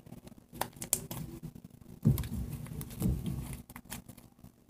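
Sticky homemade fluffy slime (glue, shaving cream and contact solution) being kneaded and stretched between the hands, giving small wet clicks and crackles, with a couple of duller bumps about two and three seconds in. The slime is still a little sticky and needs more contact solution.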